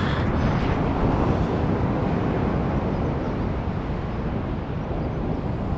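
Steady rush of wind buffeting the microphone over surf breaking on the beach.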